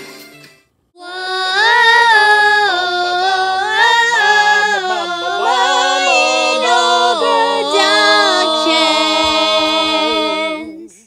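A single unaccompanied singing voice holding a string of stepped, gliding notes, a sung jingle under a production logo. It comes in about a second in, after the previous music fades out, and stops just before the end.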